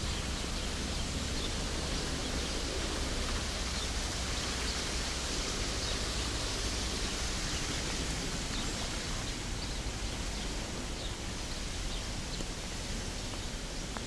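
Steady outdoor rushing noise with a few faint, short, high ticks.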